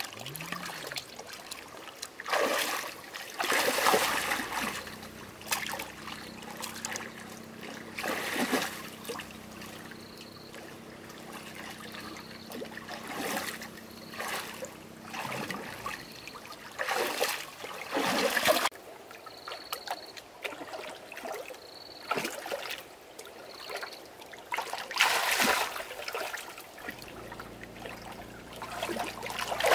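Water splashing and trickling in irregular bursts, with a faint steady low hum underneath.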